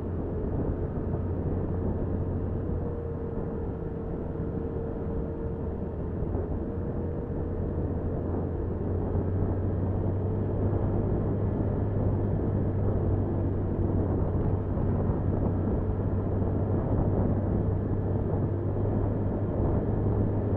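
Motorcycle riding along a road, heard through its dashcam: a steady low engine hum under a rush of wind and road noise, growing slightly louder in the second half.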